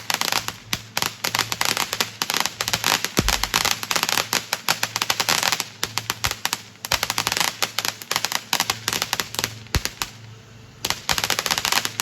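Consumer fireworks crackling: a dense, rapid run of sharp pops, with a brief lull about ten seconds in before the crackling picks up again.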